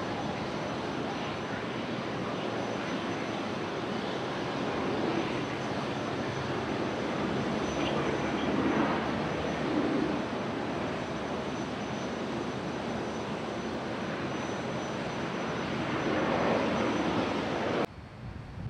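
Airbus A320 jet airliner landing and rolling out on the runway: a continuous jet engine and air roar that swells louder about halfway and again near the end, then cuts off abruptly.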